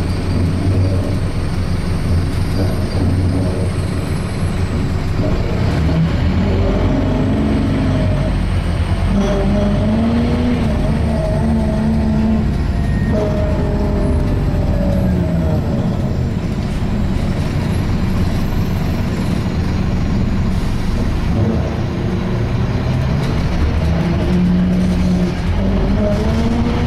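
Wright Solar-bodied Scania K230 single-deck bus heard from inside while moving: engine and drivetrain running with a loud groaning note that rises and falls in pitch as the bus speeds up and slows, several times over.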